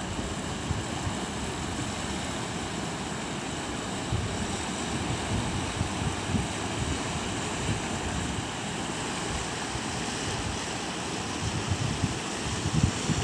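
River in flood rushing past as a steady hiss of water, with wind buffeting the microphone in irregular low gusts.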